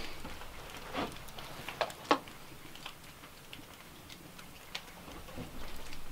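A few scattered clicks and knocks of utensils against a cookpot and bowl as stew is served. The loudest knock comes about two seconds in.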